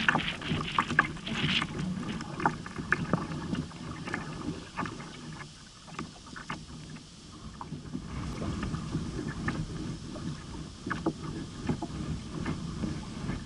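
Water splashing and slapping against a kayak's hull as it is paddled across choppy water, in irregular splashes a few a second, with wind rumbling on the microphone. The splashing eases for a few seconds around the middle, then picks up again.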